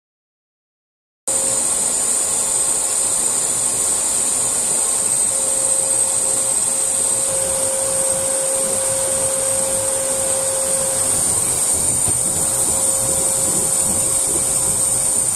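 Bosch brake lathe running steadily, spinning a brake rotor while its tool bits cut across the rotor faces: a constant hum with a strong high hiss, which starts abruptly about a second in.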